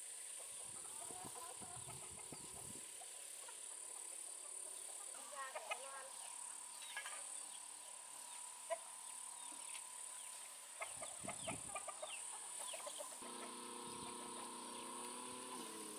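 Faint chicken clucks and short calls, with a longer held call near the end, over a steady high-pitched drone.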